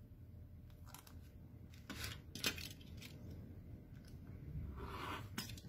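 Faint clicks and taps of hands and an acrylic quilting ruler being set on fabric over a cutting mat, then, about five seconds in, a short hissing run of a rotary cutter slicing through the layered fabric along the ruler edge.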